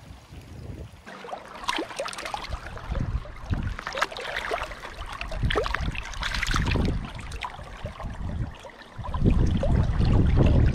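Close splashing and sloshing in shallow stream water as a small trout on a fly line is brought to hand, with a hand dipping into the water. A loud low rumble comes in near the end.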